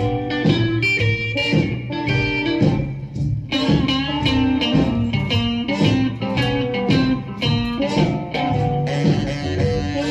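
1956 rock and roll instrumental played from a 78 rpm record, electric guitar prominent over bass and drums in a blues style.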